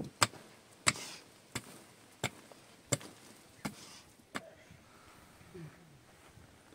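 Pickaxe blows into earth, seven strikes at a steady pace of about one every 0.7 s, stopping about four and a half seconds in.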